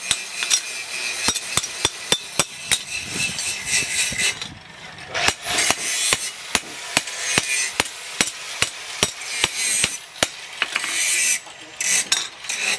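Hand hammer striking a steel cleaver blade, cut from a tractor disc, on an anvil: a steady run of sharp metallic blows about three a second. The blows ease off briefly about four seconds in and again near the end.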